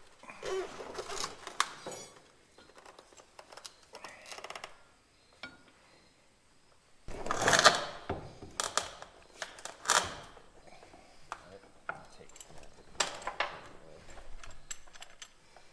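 Metal hand tools and bolts clinking and clattering against steel truck parts during mechanical repair work, in scattered knocks, the loudest about halfway through.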